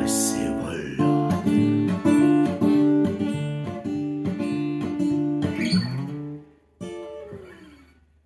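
Acoustic guitar strummed in a steady rhythm as the song's closing bars. The strumming breaks off about six and a half seconds in, then a last chord rings out and fades.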